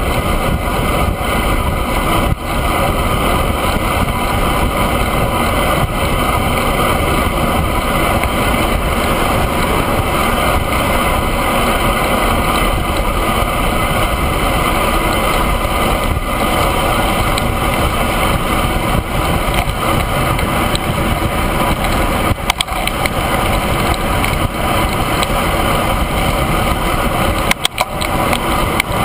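Steady rush of wind over a handlebar-mounted camera's microphone while riding a road bike at speed, with a few brief knocks near the end.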